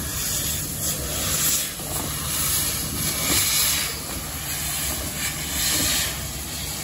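Victorian Railways K-class 2-8-0 steam locomotive K190 moving slowly past with its cylinder drain cocks open, steam hissing steadily. The hiss swells and eases about once a second over a low rumble.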